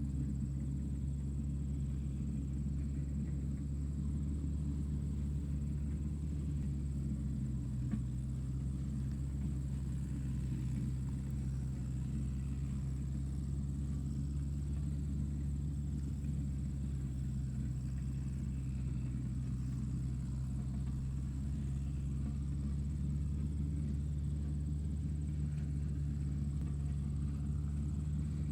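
Tractor engine running steadily at an even speed, a deep, low drone with no change in pitch.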